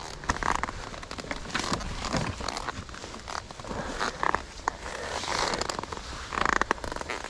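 Irregular rustling and crackling of dry leaves and twigs, with scattered clicks; no motorcycle engine is running.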